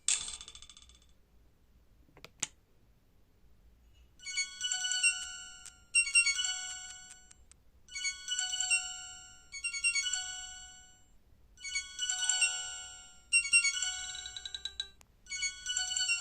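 An Alcatel OT-385JA mobile phone playing a ringtone through its own speaker: a high melody in short phrases, repeating about every two seconds, starting about four seconds in. Before it, the end of another tone fades in the first second, and a single click follows.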